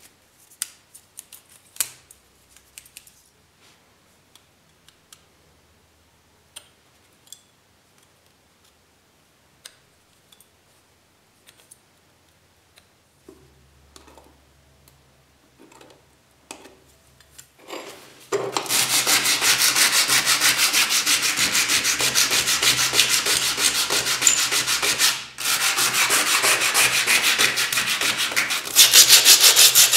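Scattered light metallic clicks and taps, then, from a little past the halfway point, rapid back-and-forth hand sanding of rust off the iron handle of an antique areca nut cutter. The sanding is a steady rasping rub of many quick strokes, with a brief pause and louder strokes near the end.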